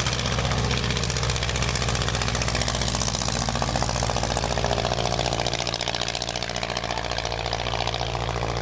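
Engine of a pioneer-era monoplane running steadily as it flies low just after takeoff, with a rapid, rough chatter of firing strokes.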